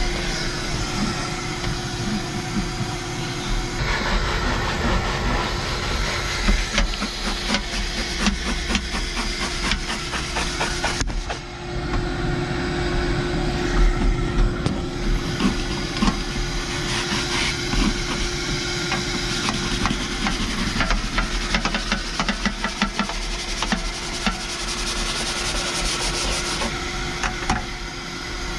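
Hand scrubbing and wiping of a ribbed rubber truck-cab floor mat with a brush and a microfiber towel: rapid rasping strokes, heaviest from about four seconds in until near the end, over a steady hum.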